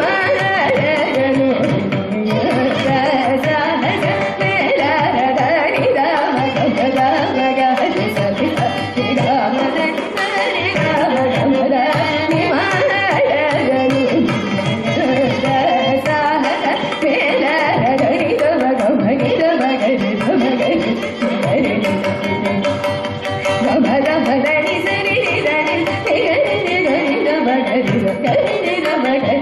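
Carnatic vocal music: a woman singing, accompanied by violin and quick mridangam drum strokes.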